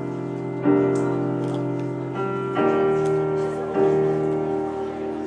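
Solo piano playing slow, sustained chords, a new chord struck about every one to two seconds.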